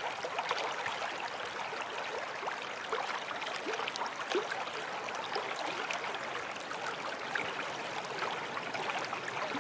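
Water trickling and lapping, with many tiny crackling splashes over a steady hiss.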